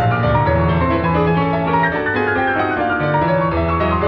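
Piano music: a running line of short notes over low notes held about a second each.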